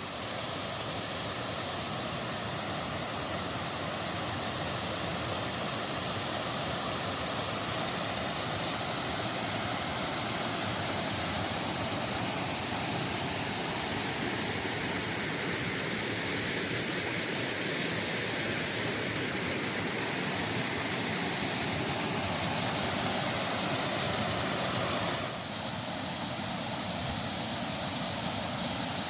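Steady rush of falling water from a small brook waterfall, dropping slightly in level near the end.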